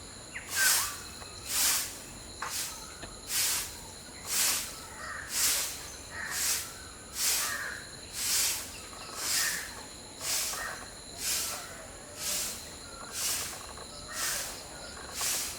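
Outdoor insect chorus: a rhythmic hiss pulsing about once a second over steady high-pitched buzzing, with a few faint bird chirps.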